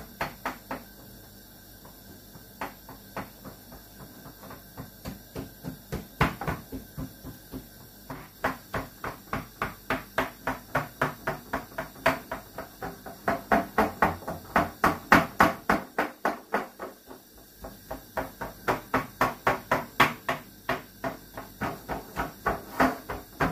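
Oiled hands patting and pressing dough thin across an upturned steel tray, giving a run of sharp taps and slaps. They come about two or three a second, sparse at first, then dense, with a short lull past the middle.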